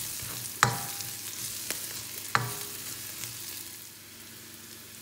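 Onion, garlic and lemongrass sizzling in oil in a stainless steel wok while a spatula stirs them, with two sharp, briefly ringing knocks of the spatula against the pan. The stirring stops near the end, leaving a quieter sizzle.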